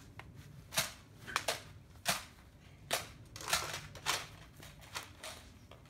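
A run of about nine sharp clicks and snaps at irregular intervals, some with a short puff after them: Nerf blasters being primed and fired.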